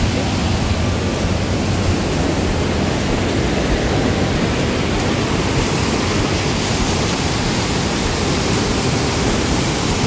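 Steady rush of a waterfall and its stream pouring over and between boulders.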